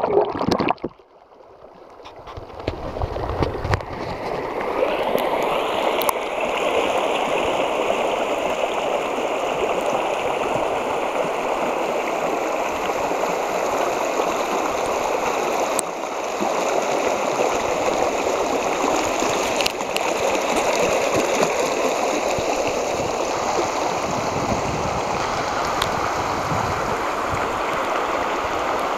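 Virgin River water rushing over rocks in a steady stream. It opens muffled, with the microphone under the water, and drops out briefly about a second in. The rush then rises over the next few seconds and holds.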